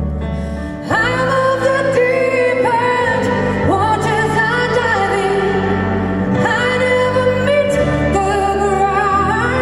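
A woman singing a slow ballad live through a microphone and PA, with long held, wavering notes that come in about a second in, over a symphony orchestra's sustained accompaniment.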